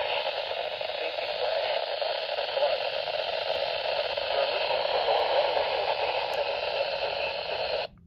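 Midland NOAA weather radio speaker hissing with steady static on a weak signal, then cutting off suddenly near the end as a button on the radio is pressed.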